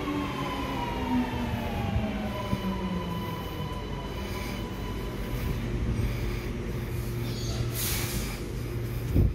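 Sydney Metro Alstom Metropolis train braking into the platform, the whine of its traction motors falling in pitch as it slows, over a low running rumble. A short hiss comes near the end, then a loud thud as it comes to a stop.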